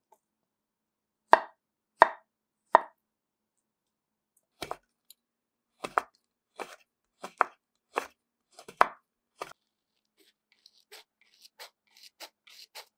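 A kitchen knife chopping on a cutting board: three sharp chops about 0.7 s apart, a run of about ten more chops, then lighter, quicker taps near the end.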